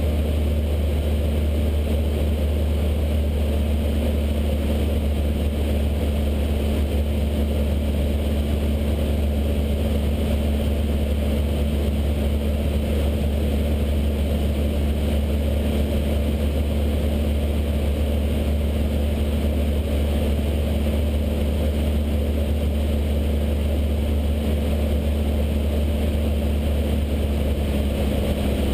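Cessna 152's four-cylinder Lycoming O-235 engine and propeller droning steadily inside the cabin, holding one constant power setting.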